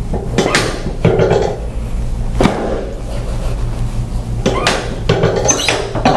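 Chiropractic drop table sections dropping under quick thrusts over the sacroiliac joints, sacrum and lower back: a series of sharp clunks, about six in all, with a pause of about two seconds in the middle.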